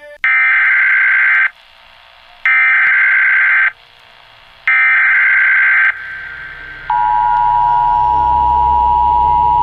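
Emergency Alert System SAME header: three identical bursts of warbling digital data tones about a second apart. About seven seconds in, the steady two-tone EAS attention signal starts, with a low rumble underneath.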